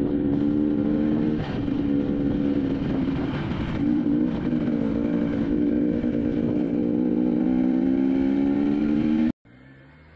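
Enduro dirt bike engine running under way at fairly steady throttle, its pitch easing briefly a couple of times. It cuts off abruptly about nine seconds in, leaving a much quieter background.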